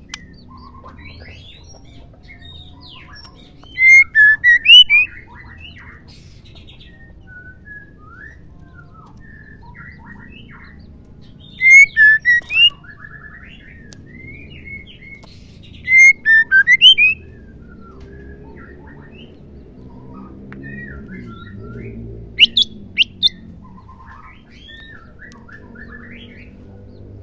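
White-rumped shama (murai batu), given as a female, calling in four loud bursts of quick, sharp notes a few seconds apart, with fainter scattered chirps in between.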